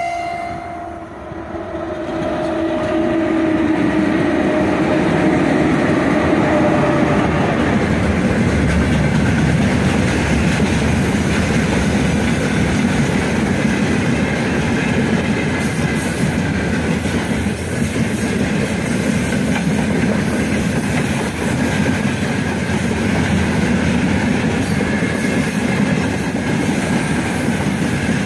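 3ES5K Ermak electric locomotive passing close by with a short freight train: the tail of its horn blast ends right at the start, then a falling whine as the locomotive goes by. After that, the freight wagons roll past with a loud, steady rolling noise of wheels on rail.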